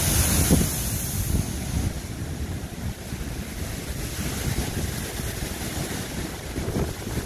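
Storm waves crashing against a sea wall, with a loud hiss of breaking surf and spray that is strongest in the first two seconds and then eases. Strong wind buffets the microphone throughout.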